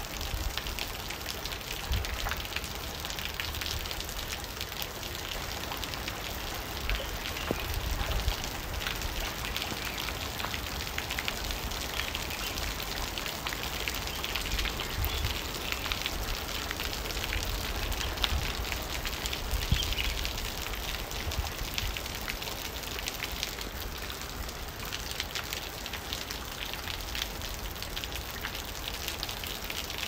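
Heavy rain pattering and splashing on a wet surface: a steady dense hiss of countless drop impacts, with occasional low rumbles underneath.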